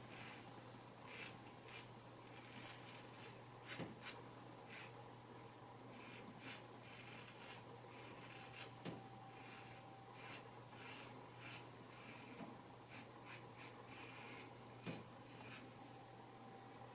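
Single-blade razor scraping through lathered stubble on the neck in short, irregular strokes, faint.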